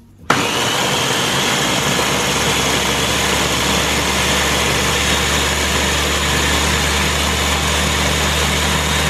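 Ninja blender's motor starting suddenly and running at a steady speed, blending almond milk, spinach and berries into a smoothie.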